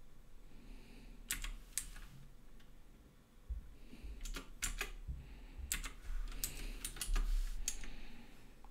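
Computer keyboard keys tapped in short clusters of a few strokes each, with pauses between, as keyboard shortcuts are entered.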